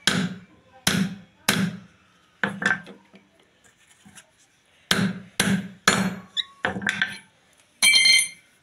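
Hammer blows on a pipe driving a new 6201 ball bearing onto the shaft of a water pump motor's rotor: sharp knocks, about five in the first three seconds, a pause of about two seconds, then about six more. A short bright ringing sound comes near the end.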